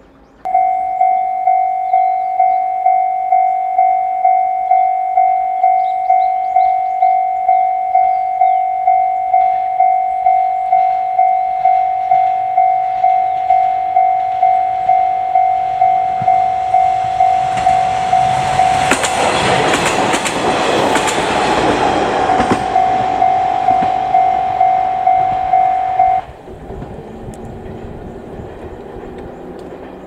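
Level-crossing warning bell ringing steadily at about two strokes a second as a two-car KiHa 48 and KiHa 47 diesel railcar train approaches and passes the crossing, with wheels clicking over the rail joints at its loudest around 19 to 22 seconds. The bell stops suddenly about 26 seconds in, leaving the train's running noise fading away.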